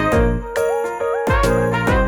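Upbeat background music with bright chiming tones over a steady drum beat.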